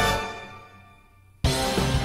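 Background music: one track dies away over about a second and a half, then another starts abruptly with drum hits.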